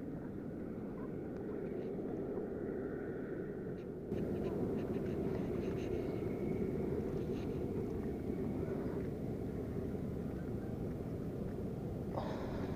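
Steady low outdoor rumble that gets a little louder about four seconds in, with a few faint ticks from handling the line and bait.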